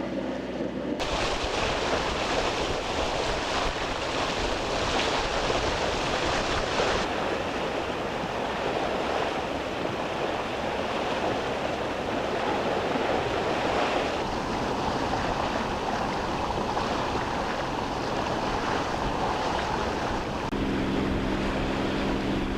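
Rushing wind and water around a boat underway, with wind buffeting the microphone. About twenty seconds in, a steady engine hum with a low pitch comes in.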